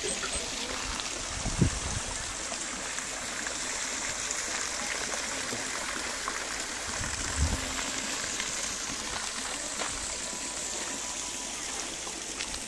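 Steady rushing of a flowing stream, with two brief low thumps, one about a second and a half in and one about seven seconds in.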